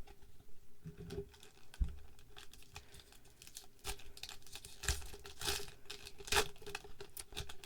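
A foil Pokémon booster pack wrapper being torn open and crinkled, with scattered clicks and rustles from handling the pack and cards, busiest in the second half.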